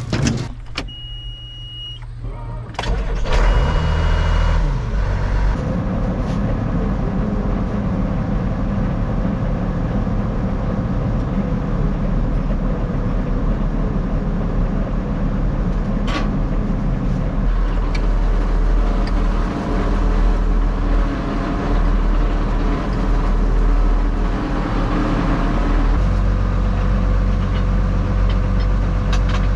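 A high electronic beep, then a truck engine starts about three seconds in and runs steadily under way.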